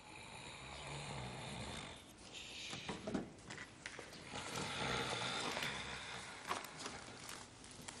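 A man snoring as he sleeps at a desk, in slow breaths that swell and fade every second or two.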